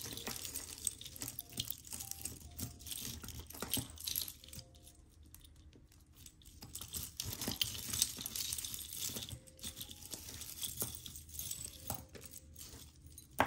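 Tangled costume jewelry being picked apart by hand: metal chains, a wire bangle and small charms clink and rattle against each other in scattered light taps, over a faint steady hiss.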